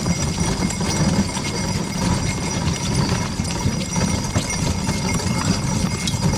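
A pair of driven horses moving over packed snow: their hooves and the vehicle they pull make a steady rough noise with scattered clicks.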